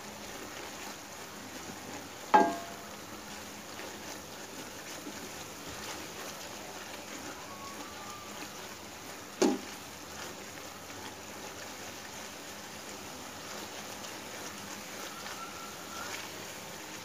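A wooden spoon stirring frying masala in a steel karahi, knocking sharply against the metal pan twice with a brief ring, about seven seconds apart, over a steady low hiss.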